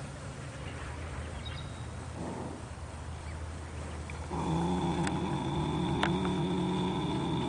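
Sleeping Standardbred horse snoring: one long, drawn-out, pitched snore starts about four seconds in and holds steady for several seconds.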